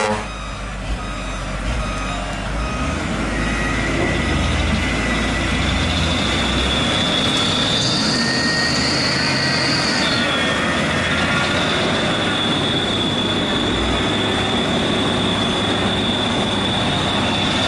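Heavy truck engine running hard under load, with a steady high-pitched whine over it that jumps higher for about two seconds midway, then drops back.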